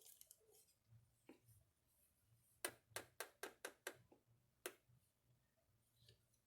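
Spoon clicking against a mixing bowl while a slime mixture is stirred: a quick run of about eight light clicks, several a second, starting about two and a half seconds in, otherwise near silence.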